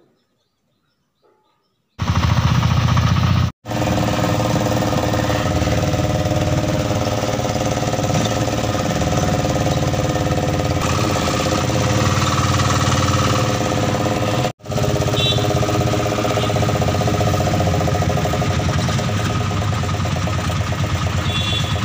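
Near silence for about two seconds, then the steady engine drone and rattle of a moving bus heard from inside the cabin, cutting out briefly twice.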